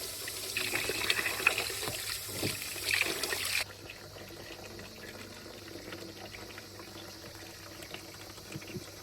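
Water splashing and trickling as it is poured or handled, then dropping suddenly to a quieter, steadier trickle about a third of the way in, with a faint steady low hum underneath.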